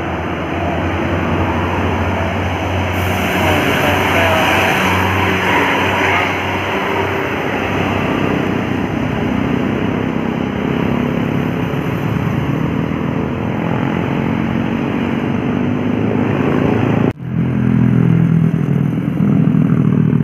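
Road traffic: vehicle engines running and passing in a steady rumble. There is an abrupt break about seventeen seconds in, after which a nearer engine is louder.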